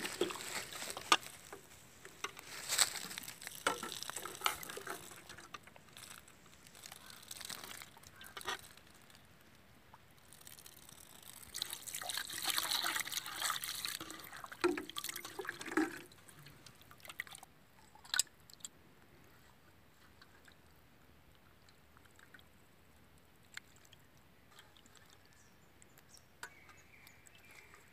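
Water sloshing and splashing as raw chicken liver is rinsed by hand in a metal bowl, with small clicks of the pieces against the bowl. The splashing comes in bursts, heaviest a little past the middle, then dies away for the last ten seconds or so, leaving only a few faint ticks.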